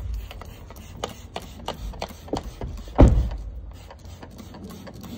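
A hand trigger spray bottle squirted again and again at the car's door window in a quick, uneven run of short sprays, about three or four a second, with one heavier knock about three seconds in.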